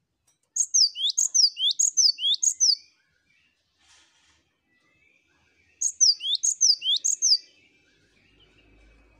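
Cinereous tit (gelatik batu) singing its repeated two-part whistled phrase: a burst of four high notes, then after about three seconds' pause a burst of three more.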